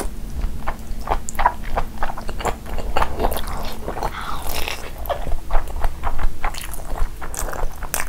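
Close-miked mouth sounds of a person eating saucy mutton curry and rice by hand: wet, squishy bites and chewing in quick, irregular clicks.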